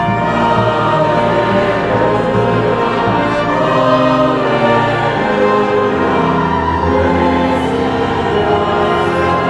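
A choir singing slow, held chords with orchestral accompaniment.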